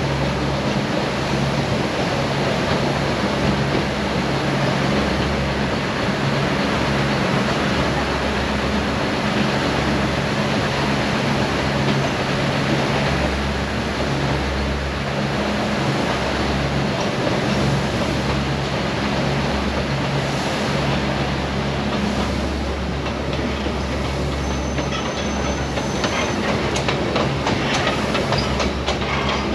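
Neral–Matheran narrow-gauge toy train running along the track, heard from inside a coach: a steady rumble of wheels and carriages with a low hum. Over the last few seconds a thin high squeal comes and goes, with rapid clicks.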